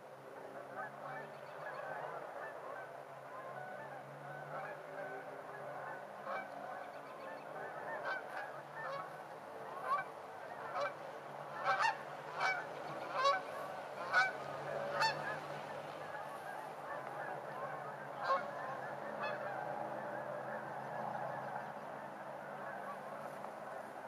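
A flock of geese honking, a continuous chatter of many overlapping calls. Louder single honks come in a quick run in the middle, with a couple more a few seconds later.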